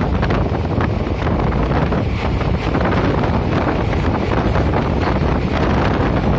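A moving train running, a steady heavy rumble with light rattling, and wind buffeting the microphone.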